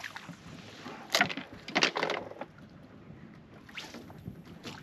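Water lapping against the hull of a small fishing boat, with several louder slaps, the strongest about a second and two seconds in.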